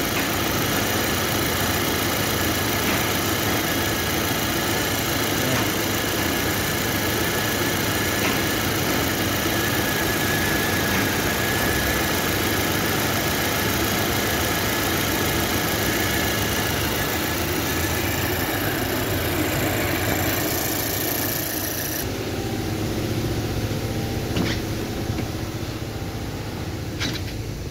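Ford Territory engine idling with a steady vibrating hum. The engine mount has failed, its rubber pressed against the metal with no clearance left, so the engine's vibration passes into the body. Some way past the middle the higher hiss drops away, and two short knocks come near the end.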